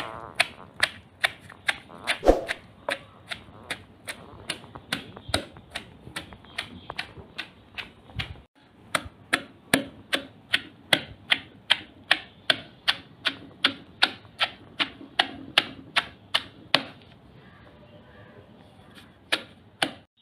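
Wooden pestle pounding chopped onion, green chillies and peppercorns in a stone mortar: steady sharp strikes about two or three a second. There is a brief break about eight seconds in, and the strikes stop about three seconds before the end.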